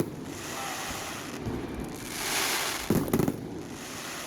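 Fireworks going off: a hissing, crackling burst that swells and fades about two seconds in, then a quick cluster of sharp bangs about three seconds in.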